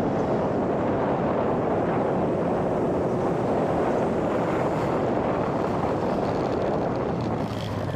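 Steady rushing wind on the microphone of a camera riding on a small electric RC plane in flight, easing off near the end.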